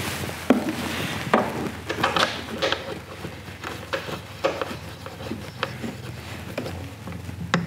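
Irregular light clicks, taps and rubbing from hands and a hex key at a snowmobile chain case as the rubber oil-level check plug is pushed back in after the oil topped up to its level.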